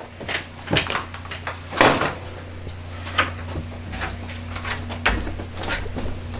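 Scattered knocks, clicks and shuffles of people moving about a small room and a door being handled, the loudest knock about two seconds in, over a steady low hum.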